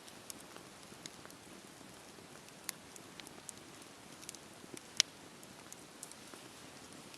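Wood fire crackling: a soft steady hiss with irregular sharp pops, the loudest about five seconds in.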